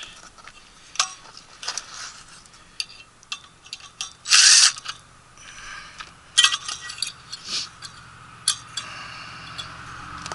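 Hand tools working the screws of a furnace burner mounting bracket: scattered metal clicks and clinks, with a louder half-second rasp about four and a half seconds in.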